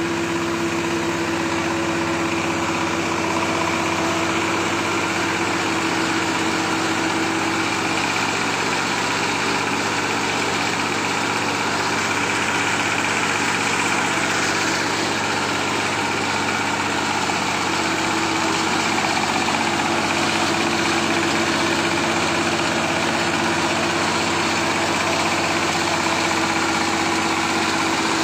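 A Mahkota KD 100 rice mill, belt-driven by an S1100 single-cylinder diesel engine, running steadily while it mills paddy. A steady hum sits over the grinding noise; it fades for about ten seconds in the middle and then returns.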